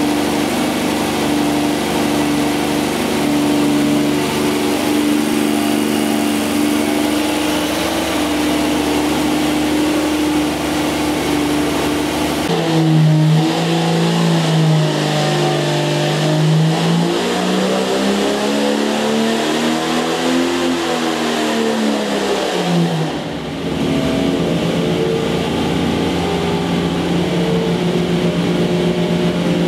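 Jeep 4.6-litre stroker straight-six running on an engine dynamometer. It runs steadily at first; about twelve seconds in the engine speed changes, rises and then falls back over roughly ten seconds, as in a dyno pull, and it then settles into a steady run again.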